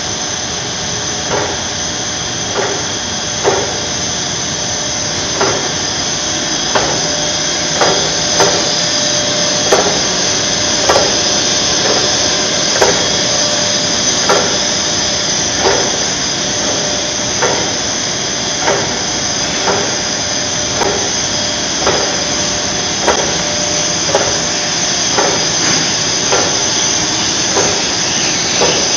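Film slitting and rewinding machine running: a steady high hiss from the film web and rollers, with a faint steady tone and a light knock about once a second.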